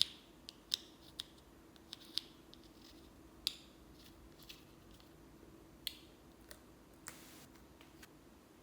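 Slime being worked by hand, giving sharp, irregular clicking and snapping pops, about eight of them, with a short hiss about seven seconds in.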